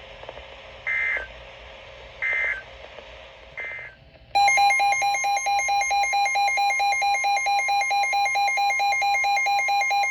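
Three short bursts of EAS digital data, about a second and a half apart: the end-of-message code closing a flash flood warning. Then, about four seconds in, a loud alert alarm beeps rapidly, about six beeps a second, over a steady tone.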